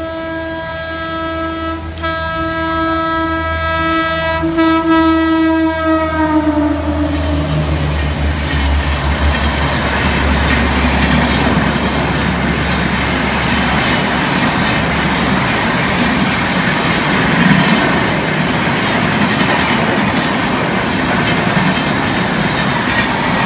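WAP-7 electric locomotive's horn sounding long, with two brief breaks, its pitch dropping as the locomotive passes about six seconds in. Then the Shatabdi Express coaches rush past at speed with a loud, steady rumble of wheels on the rails.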